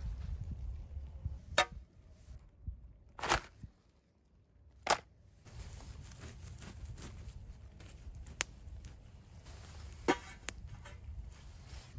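Campfire embers being poked and stirred with a stick, with a few sharp knocks and crackles. About ten seconds in, a small metal pan is set down on the coals with a clank.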